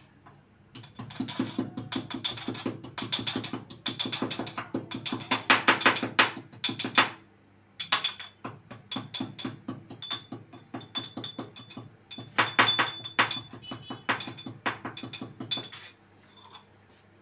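Pestle pounding fresh ginger, cloves and cardamom in a small steel mortar: rapid repeated strikes, several a second, with a metallic ring. The pounding comes in runs, with a brief pause about seven seconds in, and stops shortly before the end.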